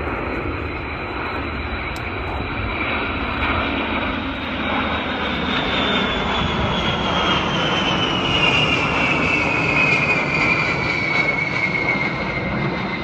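Formation of jet aircraft flying past — a Boeing E-3A Sentry AWACS with Eurofighter Typhoon, F-5M and Hawk escorts — with a steady jet rumble and a whine that falls in pitch in the second half as they pass.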